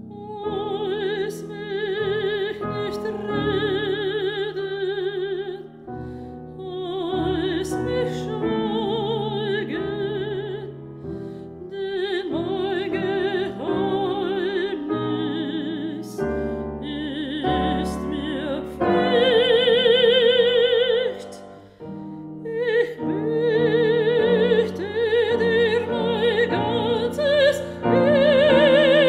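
Mezzo-soprano singing a German art song with a wide vibrato, accompanied by piano.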